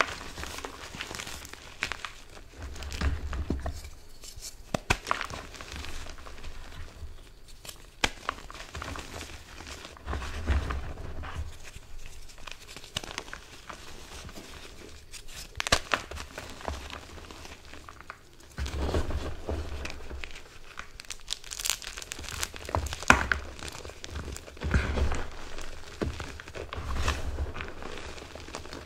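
Hands crushing and squeezing reformed gym chalk and loose chalk powder: an irregular, dry crunching and crumbling with sharp little snaps as pressed pieces break, and a soft dull thud now and then as handfuls are pressed into the pile.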